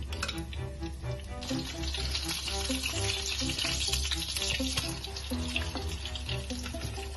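Tuna patties sizzling in shallow canola oil in a frying pan as they are turned over, the sizzle growing louder about a second and a half in. Background music plays underneath.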